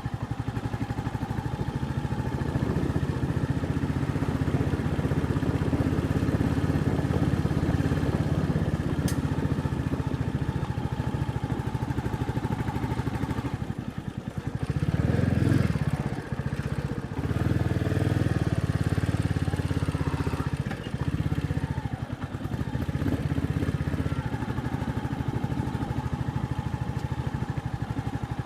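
Royal Enfield Meteor 350's single-cylinder engine and exhaust running while the motorcycle is ridden. Past the middle the throttle is shut and opened again a few times, with one louder surge.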